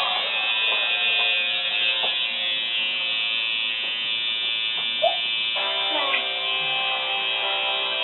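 Electric tattoo machine buzzing steadily, with background music playing; a brief click about five seconds in.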